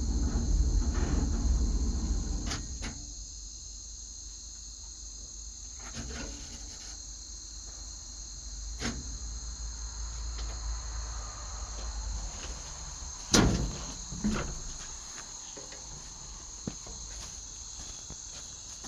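Steady chirping of crickets, with a few sharp clicks spread through it and the loudest about two-thirds of the way in. The clicks fit a starter clicking on a battery too weak to crank the engine.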